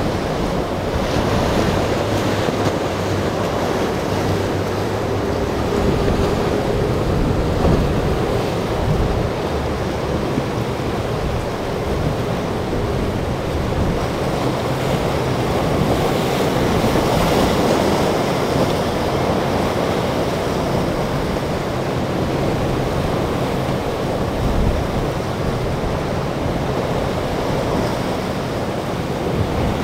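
Surf and breaking waves rushing continuously, with wind buffeting the microphone. The drone of a center-console boat's triple outboard engines sits faintly underneath in the first few seconds.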